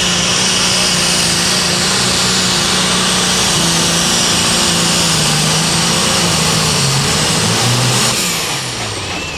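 Light Super Stock pulling tractor's turbocharged engine at full throttle dragging a weight sled, its pitch sagging gradually as it bogs under the load. About eight seconds in the throttle comes off: the engine note drops and a high whine falls away.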